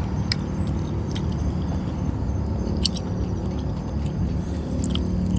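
Person chewing and biting food with the mouth close to the microphone, giving scattered small crunches and clicks, over a steady low hum.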